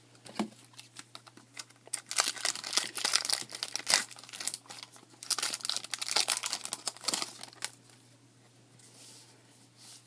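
Plastic foil wrapper of a baseball card pack crinkling and tearing as it is opened: a dense run of crackles from about two seconds in until nearly eight seconds in, then fainter rustling.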